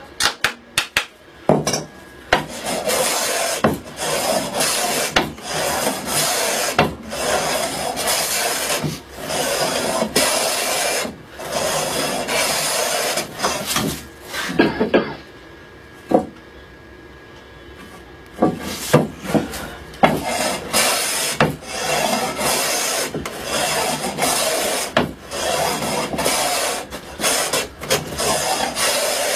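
Hand plane cutting along a wooden board in repeated long strokes of about a second each, taking down the bulge in the middle of the board to true it flat. A few sharp taps come at the start, and the strokes stop for about four seconds midway before going on.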